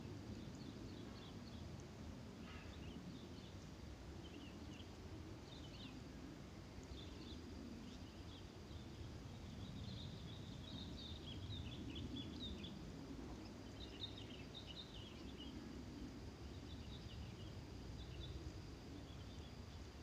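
Small birds chirping faintly and on and off, short high calls that come thickest from about halfway through, over a steady low background rumble.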